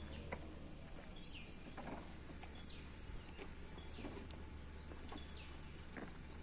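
A bird repeating a short, high, downward-sliding call every second or so, over a faint steady low hum of outdoor background noise.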